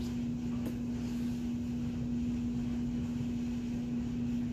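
A steady low hum holds one unchanging pitch throughout, with two light knocks near the start as items on the table are set aside.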